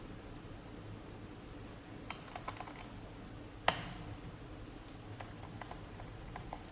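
Light clicks and taps of a screwdriver and screws on the plastic underside of a Dell Inspiron 15 5000 laptop as its bottom screws are taken out, with a small cluster of clicks about two seconds in and one sharper click a little past halfway.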